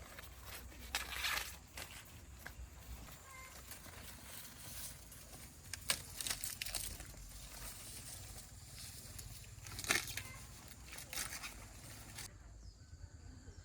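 Rustling and crackling of leaves or plant stalks being handled and torn, in several short bursts.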